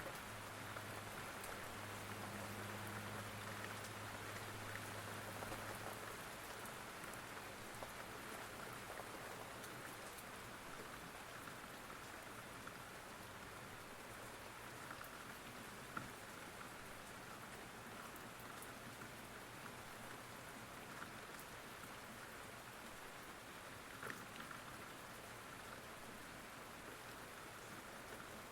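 Steady rain falling, an even hiss with scattered drop ticks and one sharper tick about halfway through. A low steady hum underlies the rain for the first few seconds, then stops.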